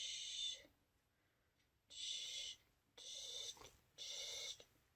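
A person whispering or breathing out in short airy hisses, about five of them, each about half a second long and roughly a second apart.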